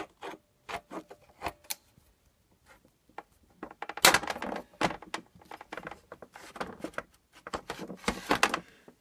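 Metal hand tools clinking and scraping on the stuck crankshaft key of a 1977 Briggs & Stratton engine as it is worked at and refuses to come out. There are a few sharp clicks in the first two seconds, then a longer stretch of rapid clattering and scraping from about four seconds in.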